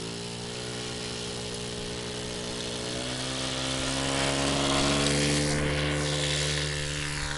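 Radio-controlled aerobatic model airplane's motor and propeller at takeoff power for the takeoff roll: a steady buzzing drone that rises in pitch as the throttle opens at the start, grows louder toward the middle and dips slightly in pitch near the end as the plane goes by.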